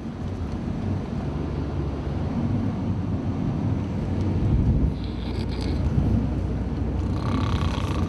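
Steady low rumble of a coach's engine and road noise, heard inside the passenger cabin.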